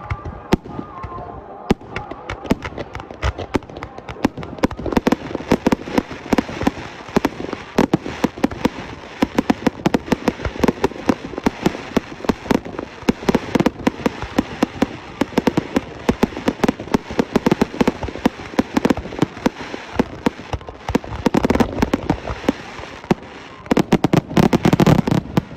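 Fireworks display: a fast, unbroken string of sharp bangs and crackles, thickening into a dense barrage near the end.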